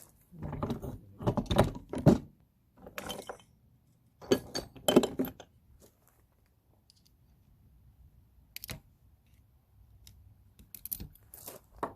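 Hand tools clinking and scraping against the steel parts of an NP271D transfer case while the snap ring on the input shaft is worked off. The clinks come in short clusters over the first five seconds, followed by a few scattered clicks.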